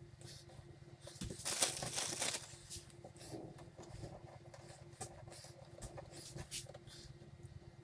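Quiet handling of marinated fish rolls being pushed onto thin wooden skewers, with a louder plastic-bag rustle from about one to two and a half seconds in as a fillet is taken from the marinade bag. A faint steady hum runs underneath.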